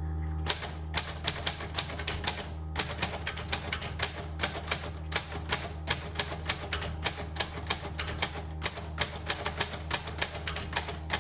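Typing on a 1938 Royal Model O manual typewriter: type bars striking at a steady pace of about three to four keystrokes a second, with a brief pause near the start.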